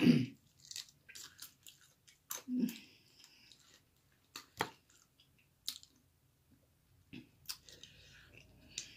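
Close-up chewing and biting into chicken wings: scattered wet mouth clicks and crunches.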